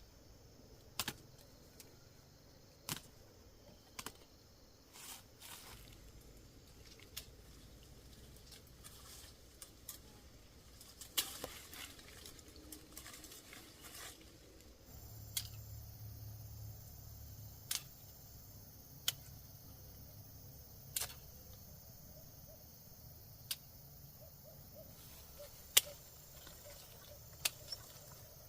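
A series of sharp clicks at irregular intervals, about one every second or two, a few of them loud, over a faint low hum.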